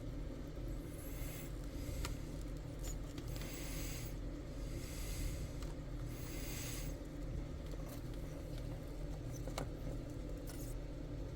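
Handling sounds at a soldering bench over a steady low hum: a few light clicks and several brief soft hissing scrapes.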